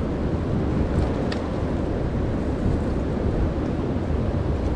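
Wind buffeting the microphone: a steady low rumble throughout, with a couple of faint clicks about a second in.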